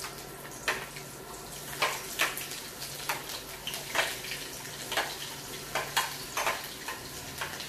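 Sliced onions and garlic sizzling as they drop into hot oil in a stainless steel wok, a steady frying hiss, with about a dozen short clinks and scrapes of the spoon against the dish and wok as they are pushed in.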